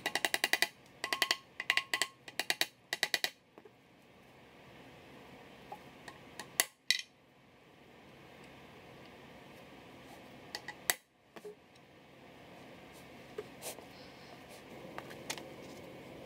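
Ratchet wrench clicking in several quick runs on bolts in an aluminium bell housing, then a few single metallic clinks of tools and parts being handled.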